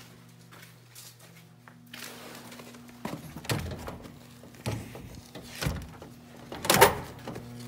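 A heavy door pushed open by hand on its metal push plate, giving four thunks in the second half, the loudest near the end. A steady electrical hum runs underneath.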